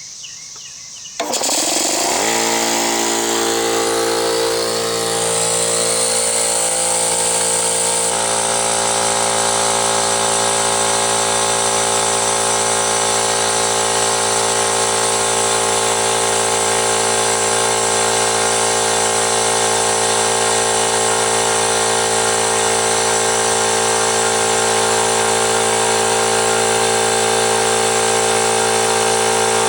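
Central Pneumatic electric air compressor switched on about a second in. It comes up to speed over the next few seconds, then runs steadily with a loud mechanical hum and whine. The owner suspects its capacitor is bad.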